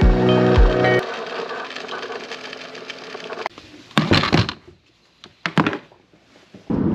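Electronic intro music ends about a second in and rings away. Then come a few sharp knocks and rustles as backpacking gear is shifted in a car's cargo area, and the steady road noise inside a moving car begins just before the end.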